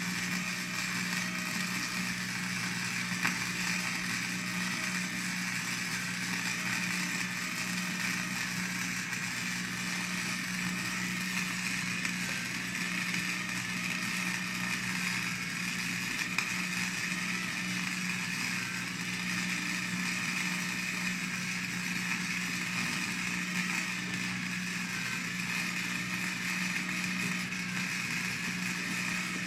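Flux-core wire-feed welder laying a continuous bead: a steady crackling buzz of the arc over a steady low hum, unbroken throughout.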